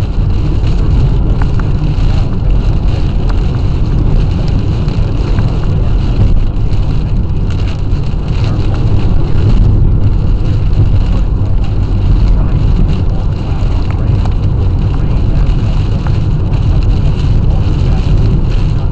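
Steady, loud low rumble of a car driving, heard from inside the cabin: road and engine noise mixed with wind.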